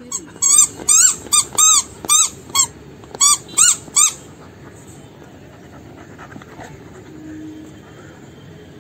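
A dog's rubber squeaky toy being squeezed by the dog's jaws: about ten quick, loud squeaks, each rising and falling in pitch, over the first four seconds, then stopping.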